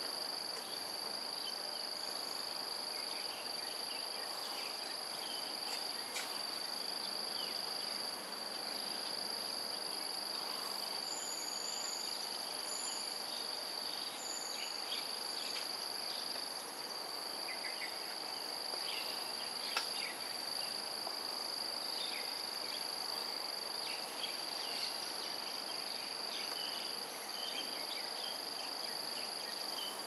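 Steady high-pitched insect chorus, with scattered faint short chirps and three brief higher calls about a third of the way in.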